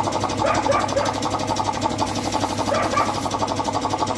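Air compressor running with a fast, steady pulsing, feeding a paint spray gun. A hiss of compressed air from the spray gun comes about halfway through.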